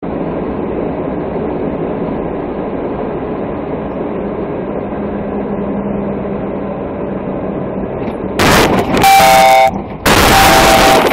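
Steady engine and road noise inside a vehicle's cab. About eight seconds in it gives way to harsh, very loud noise and two loud blasts of a vehicle horn.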